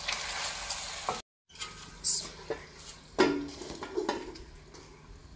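Beef karahi sizzling in a steel pot while a spoon stirs and scrapes against the metal. After a short break, a few sharp clinks as the lidded steel pot and its lid are handled and set down.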